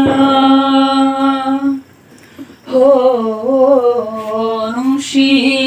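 A young singer's voice, unaccompanied, holding one long steady note, breaking off for about a second, then starting a new phrase that wavers up and down in pitch.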